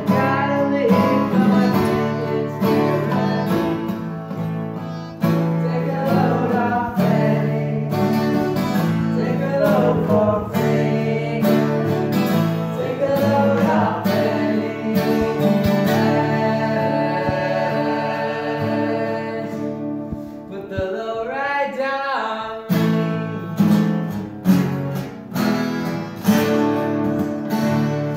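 Several acoustic guitars, a twelve-string among them, strumming and picking a song together, with a man singing over them.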